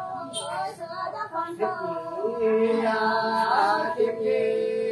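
Unaccompanied Tày-Nùng sli folk singing: voices holding long notes that bend and glide slowly between pitches, in a sung call-and-response love song.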